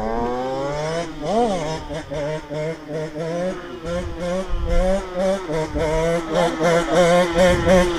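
Two-stroke single-cylinder engine of a TM 125 SMR supermoto revving: a quick rise and fall in pitch about a second and a half in, then a wavering, fast-changing rev with short throttle blips several times a second, getting louder near the end.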